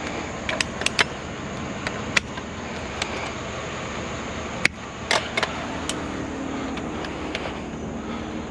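Scattered clinks and knocks of scrap household items being handled and moved, over a steady background rumble.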